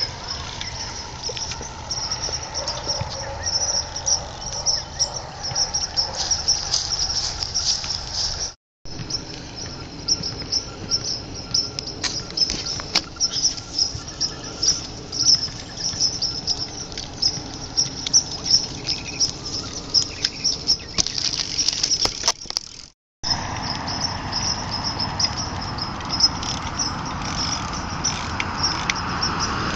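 Outdoor insect chorus, crickets chirping in a steady, fast, high-pitched pulse that stops briefly twice.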